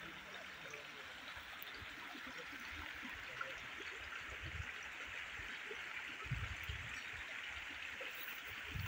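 Small stream flowing with a faint, steady trickle, with a few low thumps about six seconds in and again near the end.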